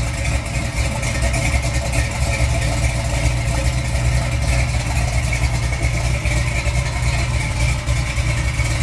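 Small-block Chevy 350 V8 with a big Lunati cam idling steadily in a Chevrolet pickup, with a kind of noisy valve train that the owner puts down to the big cam.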